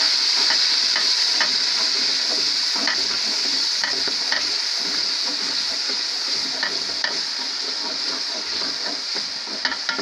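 Browned onions and potato cubes sizzling in hot oil with a little added water in a large metal pot, a steady frying hiss, while a wooden spoon stirs and scrapes the pot with scattered light clicks. The sizzle eases slightly toward the end.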